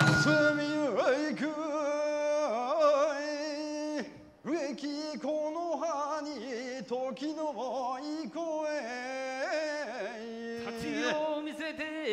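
A singer chanting a Bingo kagura song unaccompanied, in long wavering notes that slide between pitches, pausing briefly about four seconds in.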